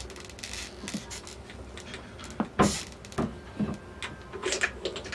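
Metal parts of a T96 overdrive transmission being handled and fitted: a string of irregular clicks and knocks, with one heavier clunk about two and a half seconds in and a flurry of sharper clicks near the end.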